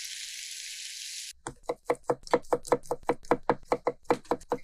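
Knife chopping parsley on a cutting board in quick, even strokes, about five a second. The chopping starts about a second in, just as a steady hiss cuts off.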